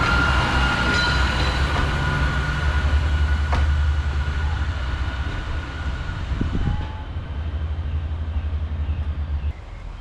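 British Rail Pacer diesel railbus running on the line, its engine a steady low drone, with a high steady wheel squeal that fades out about six seconds in. The low drone drops away suddenly near the end.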